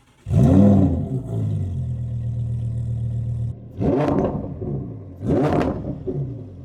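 Lamborghini Huracán EVO's V10 engine revved: a sharp rise and fall about a quarter second in, a steady high idle, then two more throttle blips before it settles to a lower idle. The blips reach only about 2,000–3,000 rpm.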